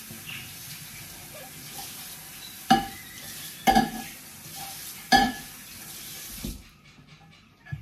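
Kitchen tap running into a stainless-steel sink while a wooden cutting board is washed, with three hard knocks of the board against the sink about a second apart; the water shuts off sharply near the end.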